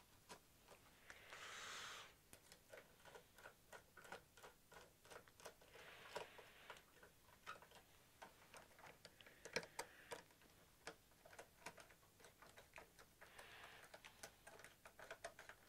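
Faint irregular clicks and soft rustles of ribbon-cable probe plugs being handled and pushed into the connectors of a Kikusui DLG7050 logic analyser.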